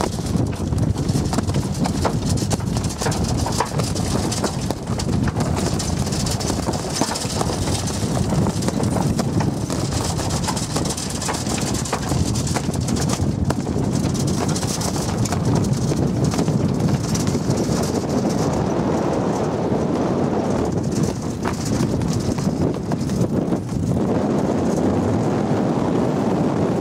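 A sailboat's sail flapping in strong wind: a dense run of irregular slaps over wind noise on the microphone.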